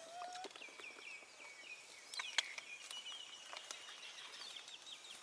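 Faint, high, thin animal calling: a steady high whistle-like tone, broken by a run of short falling chirps, that steps up in pitch about two seconds in. Scattered light clicks and rustles sound alongside it.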